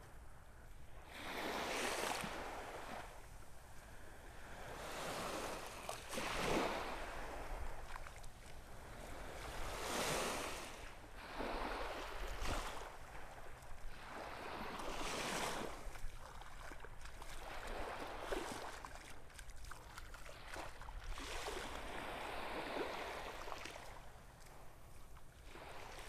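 Gulf of Mexico surf: waves breaking and washing up the beach, each one swelling and falling away every four to five seconds, about six in all.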